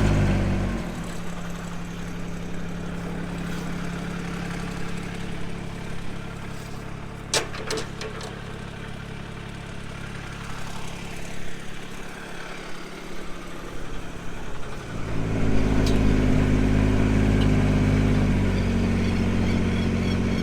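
A vehicle engine running while driving. It eases off about a second in and runs quieter and steady at low revs, then picks up again about three-quarters of the way through. There is a sharp click partway through.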